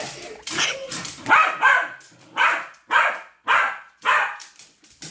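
A dog barking repeatedly, a string of short barks at about two a second.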